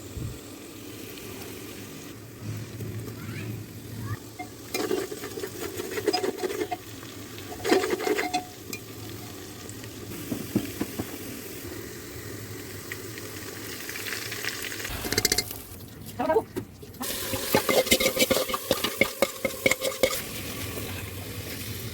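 Food frying with a steady sizzle in a cooking pot while a spoon stirs it, with scrapes and clinks against the pan coming in bursts.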